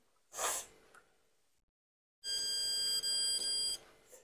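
A brief rustle, then from about two seconds in a steady, high-pitched electronic beep that breaks off briefly near three seconds and stops just before the end.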